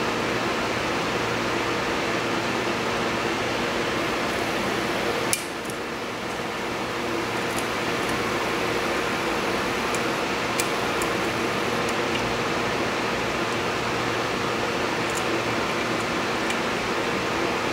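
Steady background hum and hiss, with a few faint sharp clicks scattered through it from a lock pick working the pins and sliders of a mortise lock cylinder; one click about five seconds in is the loudest.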